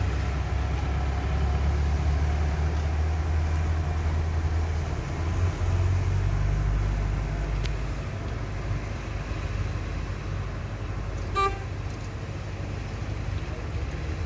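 Shunting locomotive's steady low running hum, with one short horn toot about eleven seconds in.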